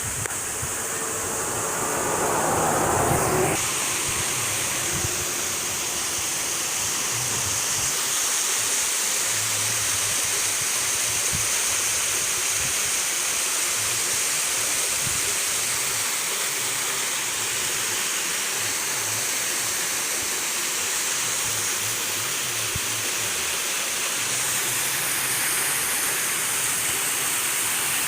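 Waterfall rushing in a steady, even roar of falling water, a little louder for a moment about two to three seconds in.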